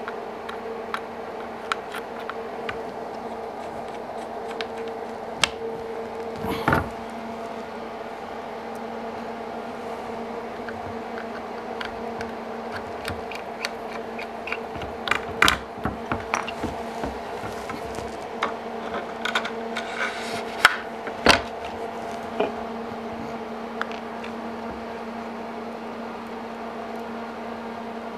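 Small screws, a small screwdriver and metal parts being handled on an aluminium guide-track rail: scattered light clicks and taps, with a few louder knocks bunched about a quarter, half and three-quarters of the way through, over a steady hum.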